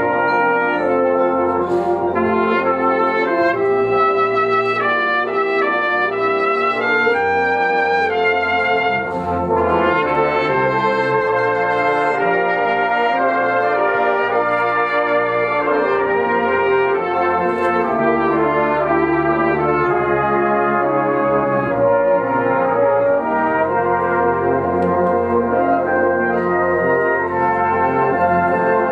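Brass band playing a duet arrangement, with two soloists, a cornet and a euphonium, carrying the melody over the full band's sustained accompaniment.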